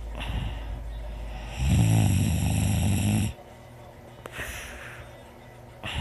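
Snoring in a slow cycle. A breathy hiss gives way about a second and a half in to a loud, low snore lasting under two seconds. A quieter stretch follows, and the next breathy hiss begins near the end.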